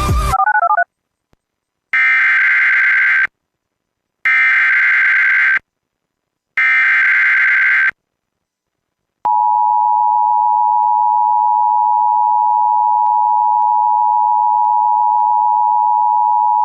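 Emergency Alert System tones: three short bursts of warbling digital data tones (the SAME header), about a second apart, then the steady two-tone attention signal, held for about eight seconds. The attention signal marks the start of an emergency alert, here a severe thunderstorm warning. A music track cuts off under a second in.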